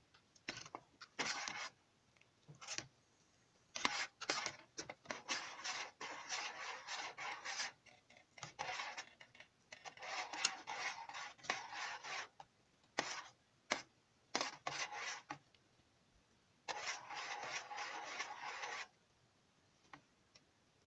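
A spoon stirring coconut milk in a stainless steel pot, scraping and rubbing against the pot in irregular spells with short pauses between them.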